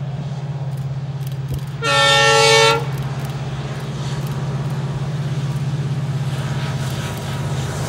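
WDP4D diesel-electric locomotive's 16-cylinder two-stroke engine drones steadily as it hauls a passenger train. One loud horn blast about a second long sounds about two seconds in.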